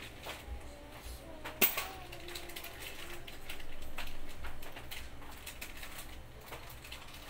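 Small boxes and packets of store goods being handled and set down in a plastic bucket: scattered light clicks and knocks, with one sharper knock about one and a half seconds in.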